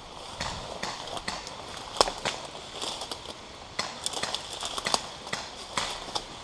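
Irregular sharp clicks and cracks over a rustling background, the loudest crack about two seconds in.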